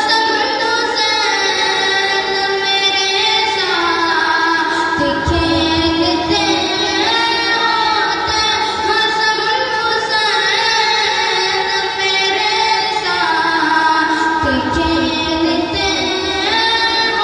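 A man reciting a naat, a devotional Urdu poem sung as a melody, with long held notes that slide between pitches, amplified through a microphone.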